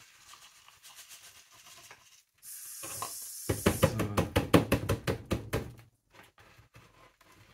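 Mineral bonsai substrate granules trickling with a faint rustle from a plastic cup into a planter. From about halfway through comes a quick, loud run of knocks and rattles, about six a second, as the pot is worked with both hands to settle the granules into the hollows around the root ball. The knocking stops a little before the end.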